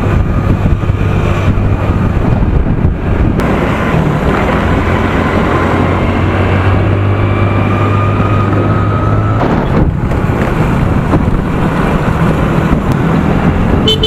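Motor scooter engine running on the move in traffic, a steady low hum under the rush of wind and road noise on the camera's microphone. The engine hum drops out about two-thirds of the way through.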